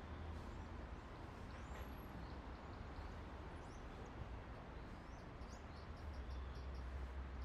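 Faint high chirps of small birds, scattered at first and then a quick run of about six short notes near the end, over a steady low rumble and hiss of background noise.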